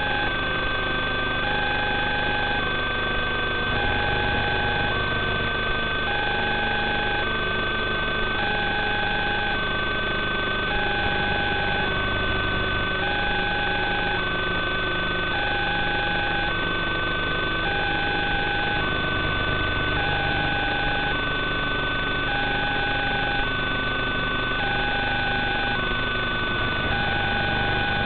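Steady electronic hum and hiss with a two-tone beep repeating throughout, a lower and a higher tone alternating, each under a second long.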